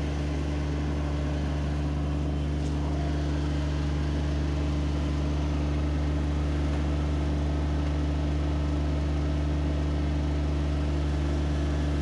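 Compact tractor engine running at a steady speed, a low even hum that does not change.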